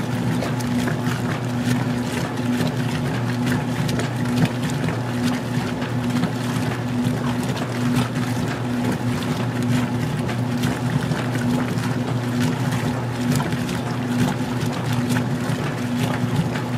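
Magic Chef 20-pound compact washer in its wash agitation, with the motor hum pulsing on and off in an even rhythm and water sloshing in the tub.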